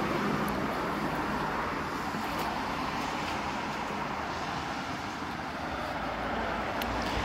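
Steady outdoor background noise, an even hiss with a few faint ticks.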